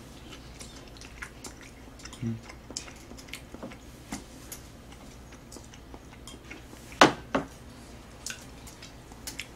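Chopsticks clicking and scraping against a metal tray and dishes, with soft chewing between them. Two sharper knocks come about seven seconds in.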